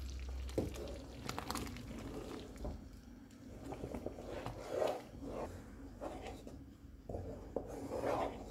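Wooden spatula stirring thick, simmering dal makhani (whole urad dal and beans) in a metal pot, in irregular strokes with a few sharp knocks.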